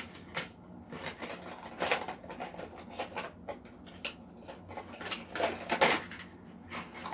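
Handling noise from a small cordless screwdriver and its cardboard-and-plastic box being turned over and fiddled with: scattered clicks, taps and rustles, busiest about two seconds in and again near six seconds.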